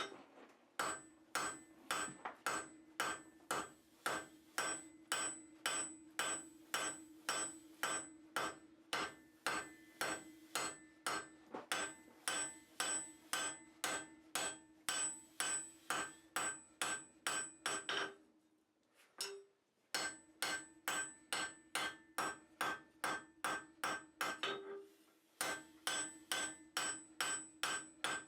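Blacksmith's hand hammer striking steel on an anvil at a steady pace of about two blows a second, each blow followed by the anvil's ringing. The hammering stops briefly twice, near two-thirds of the way through and again a few seconds later.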